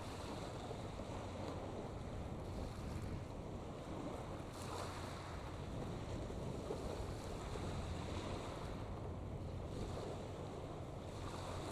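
Steady outdoor noise of wind buffeting the microphone and water washing, with a low steady hum underneath.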